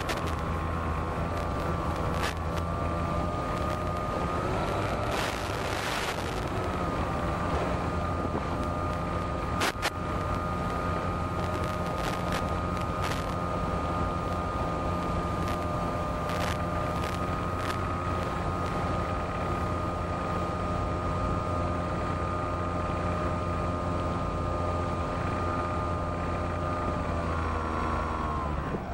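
Electric motor and propeller of a Senorita radio-controlled model airplane, running with a steady whine in flight, with a few sharp clicks. Near the end the pitch drops as the throttle is pulled back for the landing approach.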